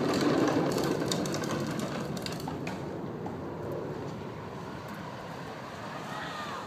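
A child's bike rolling over playground pavement, its wheels and frame making a steady rattling rumble with a few sharp clicks in the first few seconds, growing quieter.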